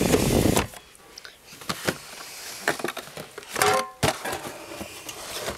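Cardboard boxes of soda cans being pushed and shuffled into a shelf: a short scraping rush at the start, then scattered knocks and taps.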